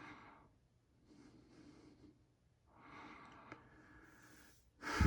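Quiet room with a few soft breaths and a louder exhale near the end. The running ceiling fan itself makes no clear sound.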